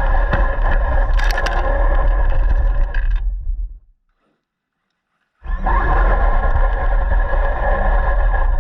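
RC car running, with a steady whine from its motor and gears. The sound fades out about three and a half seconds in, is silent for about a second and a half, then starts again abruptly.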